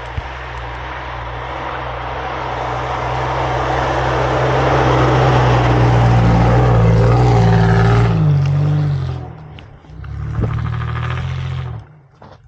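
Truck engine revving hard under load on a snowy uphill climb, growing louder over several seconds. Its pitch rises near eight seconds, it eases off, then it revs again briefly before cutting off abruptly.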